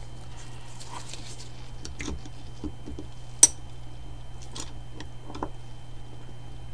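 Small metallic clicks and scrapes of a screwdriver working a retaining clip into the bore of a motorcycle brake master cylinder, with one sharp click about three and a half seconds in.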